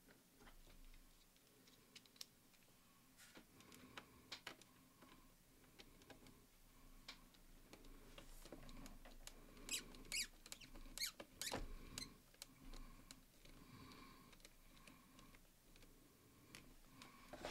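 Faint scattered clicks of a small Phillips screwdriver turning hinge screws into a laptop's metal hinge, with light handling of the laptop, thickest a little past the middle.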